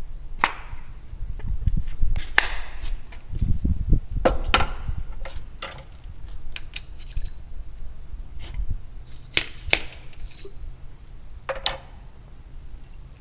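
Irregular sharp clicks and knocks as a black-powder muzzle-loading match pistol is loaded, with a wooden rod tapping against the barrel, over dull handling rumbles.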